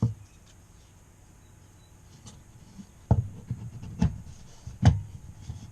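Plastic parts of a guided knife-sharpening kit handled and knocked together as the tower is fitted into the base: a knock at the start, faint handling, then three sharp knocks a little under a second apart near the end.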